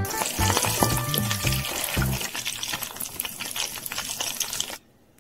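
Hot oil sizzling and crackling around breaded pork cordon bleu rolls in a miniature wok during their second fry, with a metal spoon moving through the oil. The frying cuts off abruptly shortly before the end.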